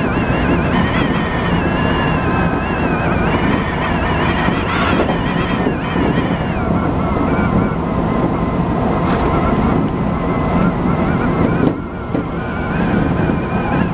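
Renewed Odakyu 1000 series electric train running at speed, heard from behind the driver's cab: continuous rolling and rail noise with whining tones that waver in pitch. Near the end the sound briefly drops and changes as a train on the next track passes the other way.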